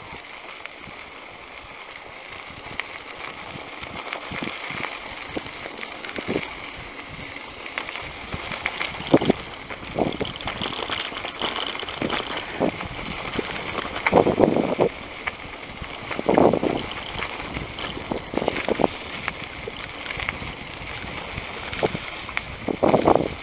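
Bicycle rolling along a dirt road: a steady hiss of tyre and wind noise, broken by several louder bursts of rattling noise a few seconds apart as the bike goes over rough ground.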